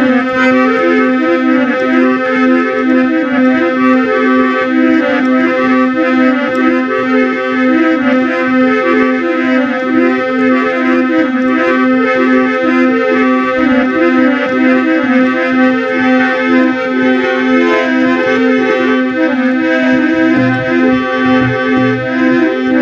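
Instrumental interlude of a Rajasthani folk devotional song: a reed-voiced keyboard instrument plays a busy melody over a steady held drone, with dholak and khanjari drumming underneath.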